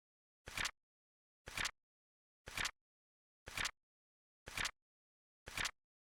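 Flip-clock timer sound effect: a short two-part clack of a flap falling, repeating exactly once a second, six times, with dead silence between.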